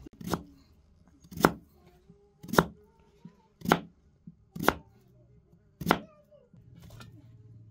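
Knife slicing a raw peeled potato on a wooden cutting board: six sharp cuts, each about a second apart, the blade knocking on the board.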